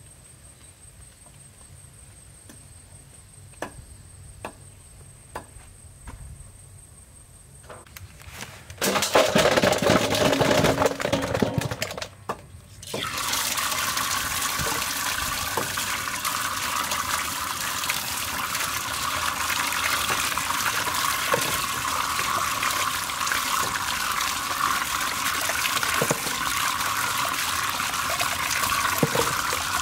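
Water pouring from a pipe onto sweet potatoes in a stainless steel bowl, splashing steadily as they are rubbed clean by hand, with an occasional knock against the bowl. The first several seconds are quieter, with a few light knocks; a loud rush of water starts about nine seconds in, stops briefly near twelve seconds, then runs on steadily.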